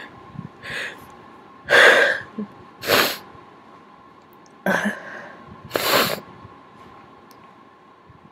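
A person sneezing several times in quick succession, the sneezes brought on by tickling inside the nose with a Q-tip. The loudest sneeze comes about two seconds in.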